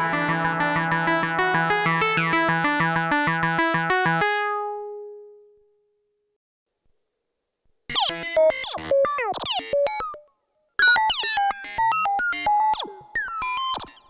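Arturia MicroFreak synthesizer played through a Behringer DR600 digital reverb pedal. A rapid run of repeated notes stops about four seconds in and rings out in a short reverb tail. After a couple of seconds of silence a new patch starts, choppy notes with sliding, swooping pitches.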